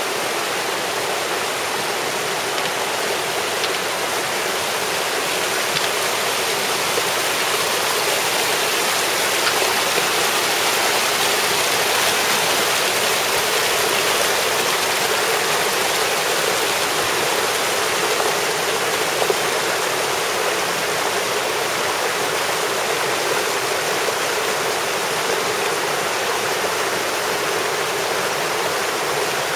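The River Heddon, a shallow river, rushing and splashing over pebbles and boulders in small cascades: a steady rush of running water.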